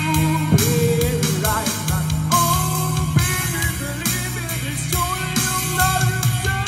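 A man singing a rock-ballad cover into a handheld microphone, his voice holding and sliding between notes, over guitar-led accompaniment.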